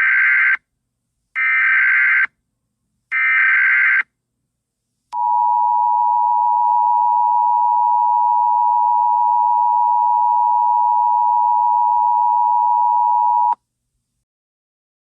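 Emergency Alert System tones: three short bursts of SAME header data tones about a second apart, then the two-tone EAS attention signal held steady for about eight seconds before it cuts off sharply.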